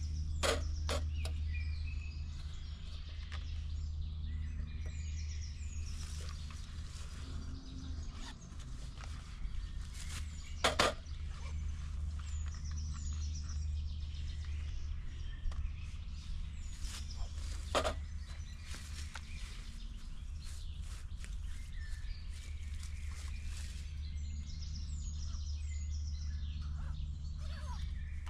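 Woodland birds chirping over a steady low rumble, with a few sharp knocks, the loudest about 11 and 18 seconds in, as gear is handled and set on a folding camp table.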